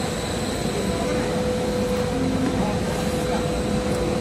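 Steady loud whir of large cooling and blower machinery, with a constant hum and a thin high whistle, over low crowd chatter. The high hiss falls away suddenly at the very end.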